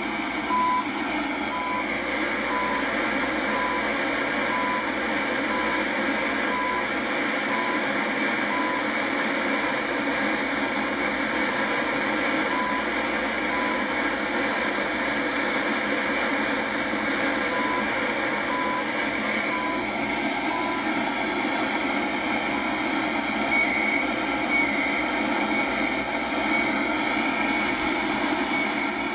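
Shortwave receiver audio of the CHU time station on 3330 kHz through a Yaesu FTdx10 on an end-fed wire antenna: heavy static and band noise with faint short 1 kHz ticks about once a second, fading out about two-thirds of the way through. The low-band noise on the wire antenna is the trouble here, and the owner thinks only noise reduction might help it.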